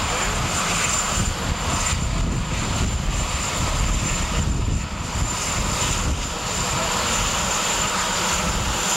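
Marine One helicopter running on the ground with engines and rotors turning, a loud steady noise that waits for the President to board.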